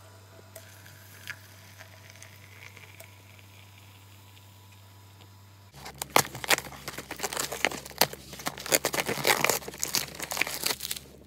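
Fingers tearing open a perforated cardboard advent calendar door: a dense run of crackling tears and rustles that starts about six seconds in. Before that there is only faint room tone with a low hum.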